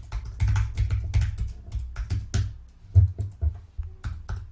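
Typing on a computer keyboard: quick, irregular keystrokes as an email address is entered, with one sharper key strike about three seconds in.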